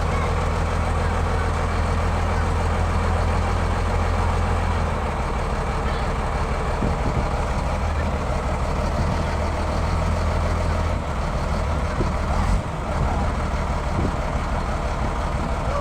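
Heavy diesel engine running steadily with a deep, low drone that shifts in note about five seconds in and again near eleven seconds, as under changing load.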